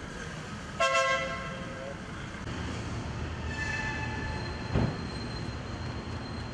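A car horn sounds a short toot about a second in, then a fainter, higher horn-like tone follows around the middle, with a low thump just before five seconds. Steady street traffic noise runs underneath.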